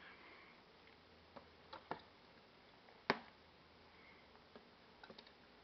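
Quiet room with a few faint, scattered clicks and taps. The sharpest comes about three seconds in, and a few small ones follow near the end.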